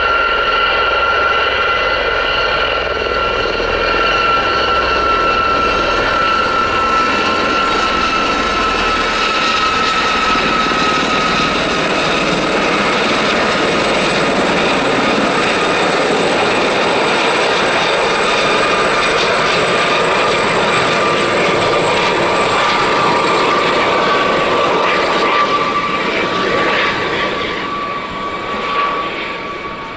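Four Westland Gazelle helicopters flying past in formation: a steady high turbine and fenestron tail-rotor whine over rotor noise. The whine slowly falls in pitch, and the sound gets quieter near the end.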